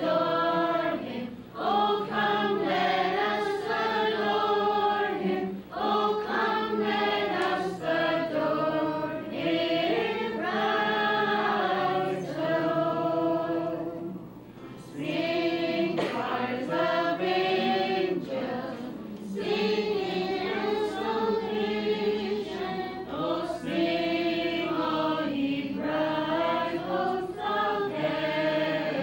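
A group of voices singing a Christmas carol together, in held, sung lines with short breaks between phrases, the longest about halfway through.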